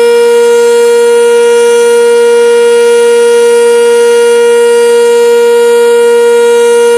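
Sentry 10V outdoor warning siren sounding its Alert signal: one loud, steady tone held at full pitch, with no rise or fall.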